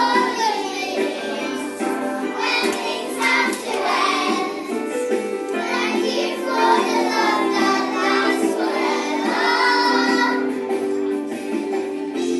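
A group of children singing a song over a steady musical accompaniment.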